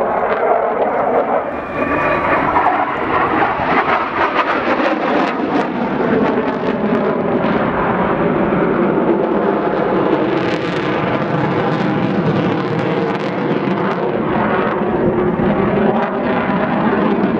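MiG-29 fighter's twin jet engines running loud as it flies overhead: a steady rush of jet noise with crackling throughout.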